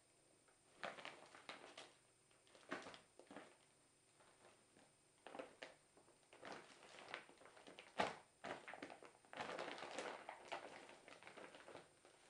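A cat rustling and scrabbling in a cloth bag: irregular soft rustles and scrapes, a sharp knock about eight seconds in, and a longer rustle around ten seconds.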